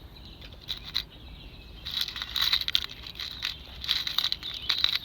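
Small wasps buzzing in quick passes close to the microphone, starting about two seconds in: a swarm stirred up from a nest nearby.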